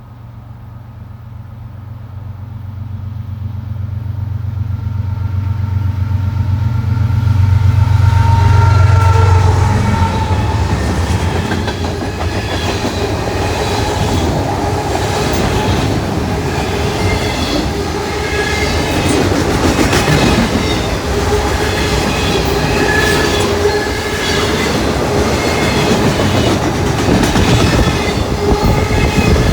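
A freight train passing at speed. The low drone of its diesel locomotives grows louder and peaks about nine seconds in. After that comes the steady rush of the cars, with a rhythmic clatter of wheels over the rail joints.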